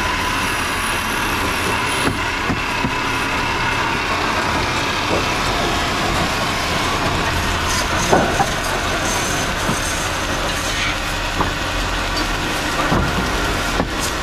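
Belt-driven wood lathe running steadily while a hand chisel cuts into the spinning wood. A few short knocks, the clearest about eight seconds in.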